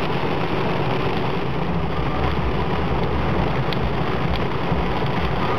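Rain hitting the windshield and body of a moving car, heard from inside the cabin over a steady rumble of road and engine noise, with a few sharper drop hits standing out.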